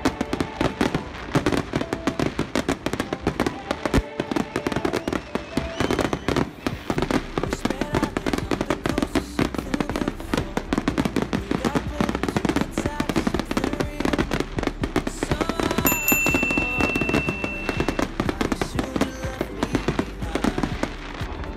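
Fireworks display: a dense, unbroken barrage of bangs and crackles from many shells bursting close together.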